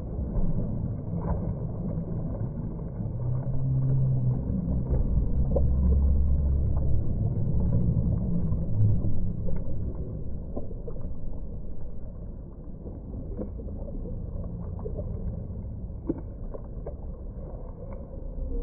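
Muffled, dull sloshing and splashing of pool water as a small child swims with kicking strokes, mostly a low rumble with small scattered splashes, louder around the middle.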